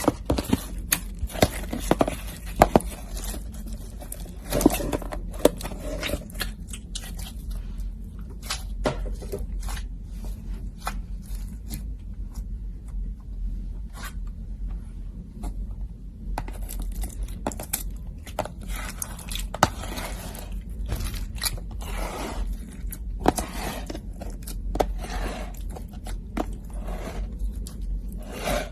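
Slime being kneaded and pressed by hand, giving irregular sticky clicks, pops and crackles with some scraping, sparser for a few seconds in the middle.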